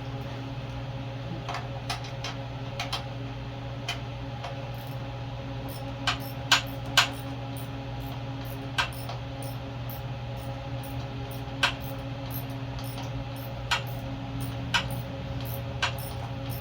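Quarter-inch-drive ratchet and socket working a bolt on a small engine: scattered sharp metallic clicks at irregular intervals, a few louder ones about six to seven seconds in, over a steady low hum.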